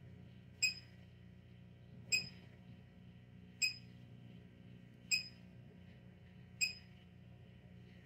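A 1500-watt pure sine wave inverter chirps its overload warning: five short, high beeps about a second and a half apart, over the low steady hum of a 1000-watt microwave running on it. The chirping signals that the load, about 1.7 kW, is above the inverter's rating.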